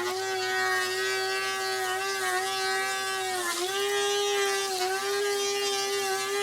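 DeWalt 735X thickness planer running at speed: a steady high motor whine with a hiss of air and chips blowing out of its chip chute. The pitch dips briefly twice.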